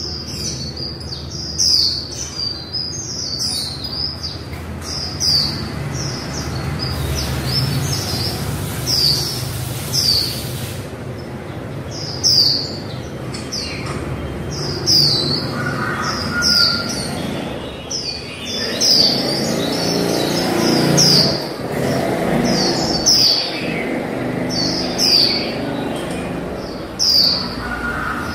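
Female white-eye calling: short, high, down-slurred chirps repeated about once or twice a second with brief pauses. A steady low rumble runs underneath and swells for a few seconds past the middle.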